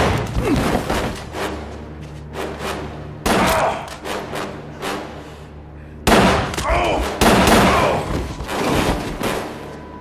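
Movie handgun gunfire: rapid volleys of pistol shots in several bursts, the first at the start, another about three seconds in and more around six to seven seconds, over a tense film score.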